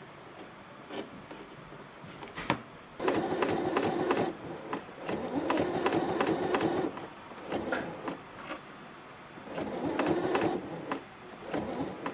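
Electronic domestic sewing machine running in five short bursts with pauses between, its needle stroking rapidly to punch a row of holes through a leather label for a hand saddle stitch. A single click comes just before the first burst.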